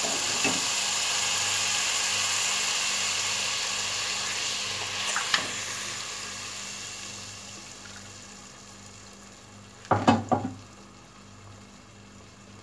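Semolina roasted in hot ghee sizzling and hissing as water is poured in, the hiss dying down steadily over several seconds. A short knock or clatter of a utensil on the pot comes about ten seconds in.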